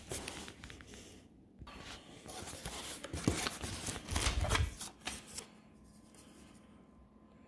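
A cardboard shipping box being opened by hand: irregular rustling and crackling of cardboard flaps and plastic bubble-wrap packing, with sharp clicks. It goes quieter after about five seconds.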